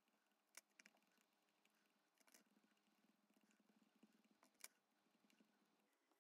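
Near silence, with a few faint taps of a sponge dauber pouncing ink through a stencil onto cardstock.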